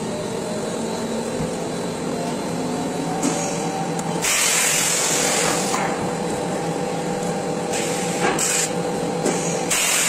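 Steady machine noise, a hiss with a faint hum. It is broken by louder bursts of hiss: one lasting over a second about four seconds in, and shorter ones near eight seconds and near the end.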